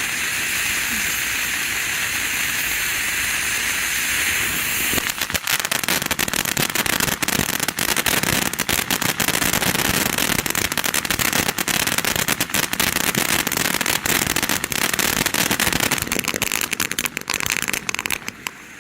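Consumer ground fountain firework burning: a steady spraying hiss for about five seconds, then a dense rapid crackling that keeps going until just before the end.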